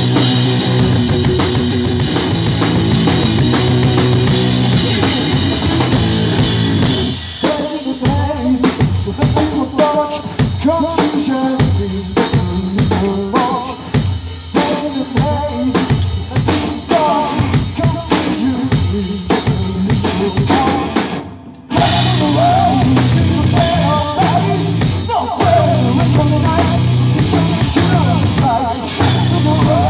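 Live rock band playing loud on drum kit and electric guitars. About seven seconds in the full sound thins to a sparser part with drums and guitar lines; it breaks off for a moment about 21 seconds in, then the whole band comes back in full.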